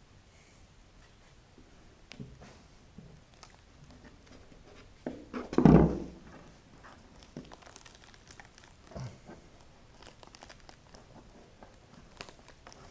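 Small crinkling, scraping and tearing handling sounds as fingers work at the fiberglass edge of a fuel-tank sump opening. A loud dull knock comes about six seconds in.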